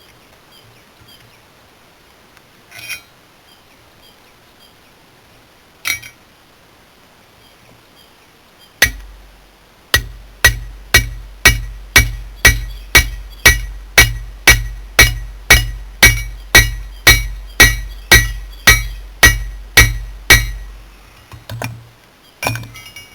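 Hammer blows on an anvil, forging a piece of hot carbon steel cut from an old file. A few single ringing strikes come first, then a steady run of about two blows a second for about ten seconds, each clanging with a metallic ring and a heavy thump.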